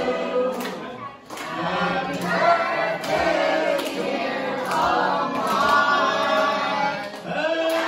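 A group of people singing together, with a steady beat, perhaps clapping, about once a second.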